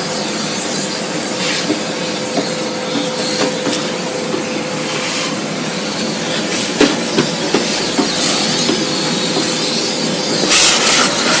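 Kärcher construction vacuum running, a steady rush of air with a hum, as it sucks dust out of a desktop computer case. A few short louder hissing surges come through it.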